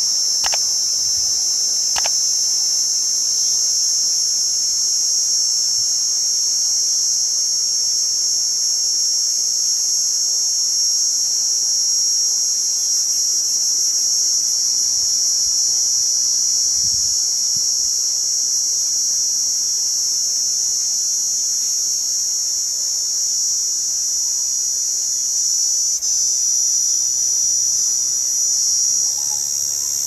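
Cicada singing: a continuous, steady, high-pitched buzzing drone that shifts slightly in pitch near the end.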